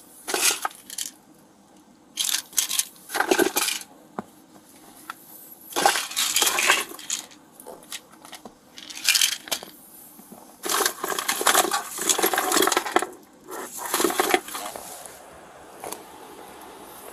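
Rustling, clicking and clinking of loose objects being handled and rummaged through in a car's interior, around the centre console and seats. It comes in irregular bursts with sharp clicks between them.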